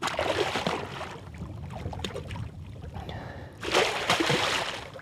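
Water sloshing and splashing as a hooked muskie thrashes at the surface. There is a splash right at the start and a bigger, louder one about three and a half seconds in.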